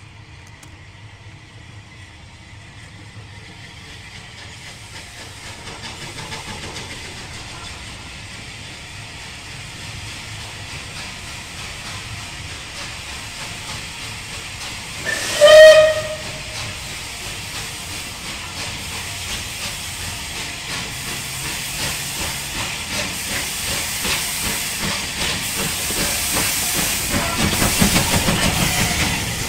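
Bulleid Battle of Britain class steam locomotive 34072 approaching, its steam hiss and running noise growing steadily louder as it nears. One short whistle blast comes about halfway through, and the hiss is loudest near the end as the engine draws level.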